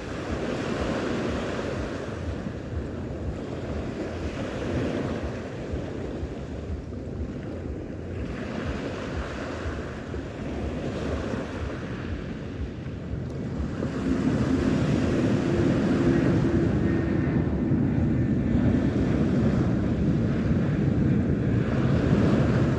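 Sea waves washing in, swelling every two or three seconds, with wind buffeting the microphone. About two-thirds of the way through, a louder low rumble with a faint steady hum joins in.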